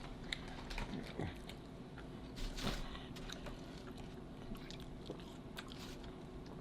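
Close-miked eating: chewing and biting food, with scattered short wet clicks and soft crunches from the mouth.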